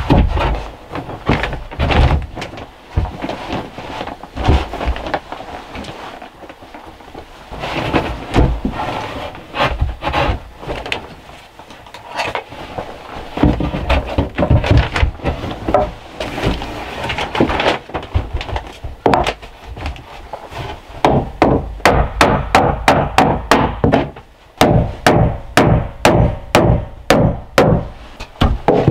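Pine boards being handled and knocked into place on a wall, with uneven wooden knocks and scraping. Near the end this turns into a steady run of hammer blows, about three a second, as nails are driven through the boards.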